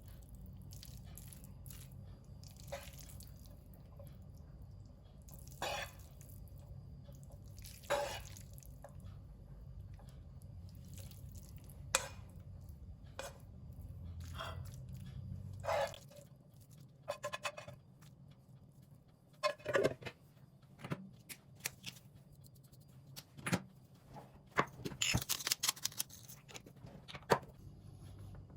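Scattered small knocks and clicks of objects being handled, over a low hum that stops about sixteen seconds in.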